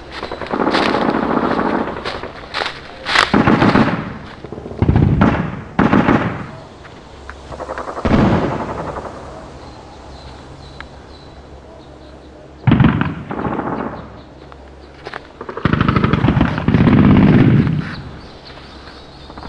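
Airsoft rifles firing repeated full-auto bursts, each a second or two of rapid clicking shots, with short pauses between them.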